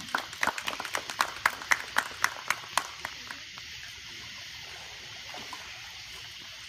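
Swimming-pool water just after a baptism by immersion: about a dozen sharp, evenly spaced slaps in the first three seconds, then a steady trickling hiss of water.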